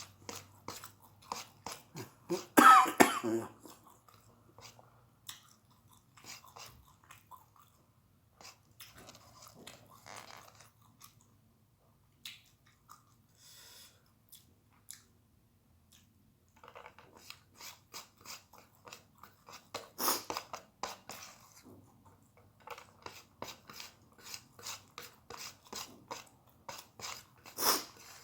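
A person chewing and crunching a meal of rice, fried egg and raw long beans, in many short crunches. There is a loud cough about three seconds in and sharp peaks near the middle and the end.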